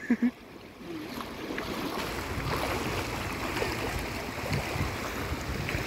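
Shallow river running over stones, a steady rushing that grows louder about a second in.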